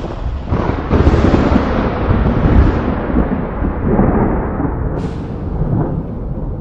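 Thunder rolling loudly in a deep, continuous rumble. It swells suddenly about a second in, and a sharp crack comes at about five seconds.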